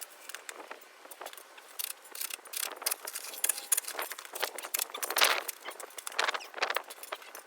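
A run of irregular clinks, rattles and scrapes, loudest a little past the middle.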